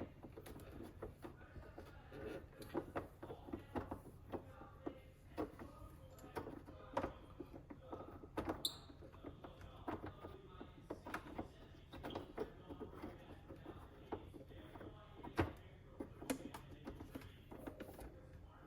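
Light, scattered clicks and taps of small metal parts being handled and fitted on an espresso machine's steam wand, with one short high squeak about halfway through.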